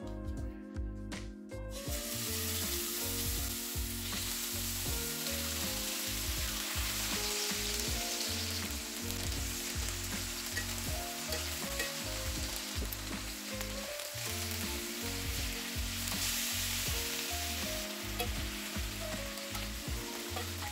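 Seasoned chicken thighs frying in hot oil in a cast-iron skillet: a steady sizzle that starts about two seconds in, when the pieces go into the pan. Background music with a steady beat plays under it.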